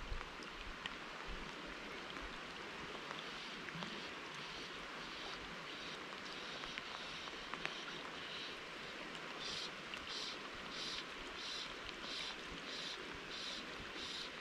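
Steady rain falling on a flowing river, a constant hiss of water with scattered drop ticks. A faint high pulse repeats about one and a half times a second, plainer in the second half.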